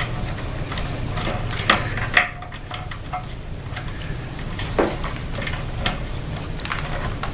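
Scattered small clicks and light rustling of engine wires being pushed back into their casing by hand, over a steady low hum.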